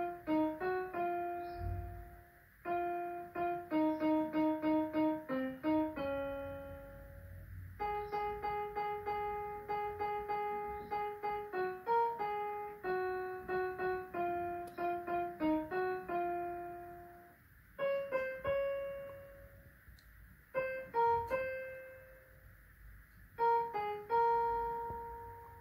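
Casio electronic keyboard played in a piano voice: an Indian patriotic melody of single notes, many repeated, in phrases with short pauses where the last note rings out.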